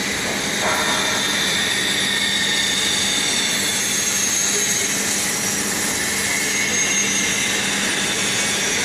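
Cylindrical grinding machine running: a steady mechanical hiss and whine from the grinding-wheel spindle and drive, over a constant low hum.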